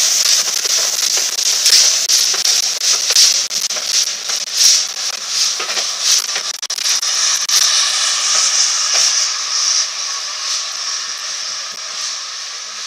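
Steam locomotive blowing off steam from its open cylinder drain cocks: a loud steady hiss with irregular louder puffs. It eases and fades over the second half as the train draws away.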